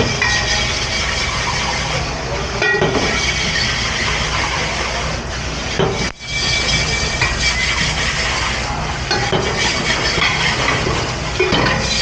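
Steady, loud noise of a commercial dish room at work, running machinery and water, with a few scattered knocks of dishes. The noise drops out briefly about halfway, then resumes.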